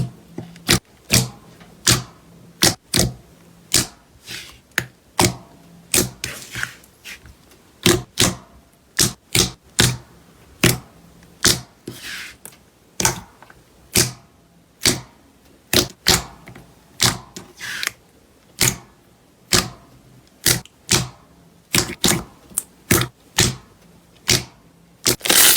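Slime being pressed and poked, giving a steady run of sharp pops and clicks, about two a second. A denser crackle starts right at the end.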